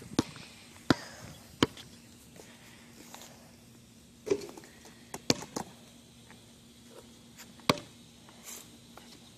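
A basketball knocking on concrete pavement as a capuchin monkey bats and pushes it along: sharp, spaced thuds, three in the first couple of seconds and a few more later on.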